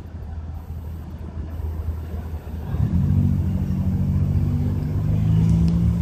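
Street traffic with a motor vehicle's engine running steadily; about halfway through, the low engine sound grows louder as a vehicle comes close.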